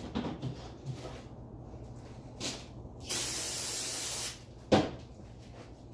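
A single burst from an aerosol spray can: a steady hiss lasting just over a second, followed shortly by one sharp knock.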